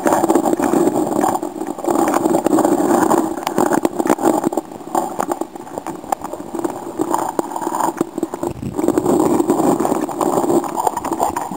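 Petrol generator engine of an electrofishing unit running steadily, muffled as heard through the water by an underwater camera, with frequent knocks and clicks.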